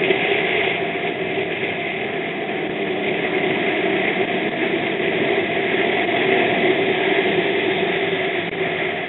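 Motorbike running at a steady road speed: a continuous engine drone mixed with wind rushing over the microphone.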